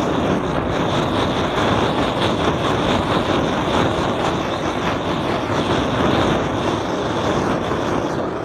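Blow torch flame burning with a steady, loud hiss as it toasts slices of bread on a griddle.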